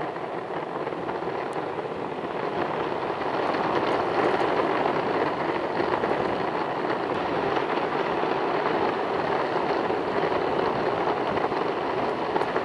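Electric skateboard's wheels rolling over rough asphalt: a steady rumbling hiss that grows a little louder a few seconds in.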